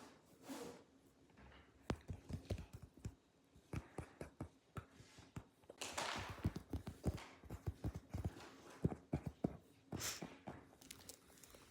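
Apple Pencil packaging being handled: a run of light, irregular clicks and knocks, with brief rustles about six and ten seconds in.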